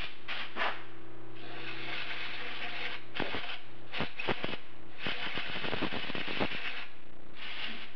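Compressed-air blow gun hissing in a series of short and longer blasts, blowing chips out of a freshly tapped stainless steel bore held in a lathe chuck, with a low steady hum underneath.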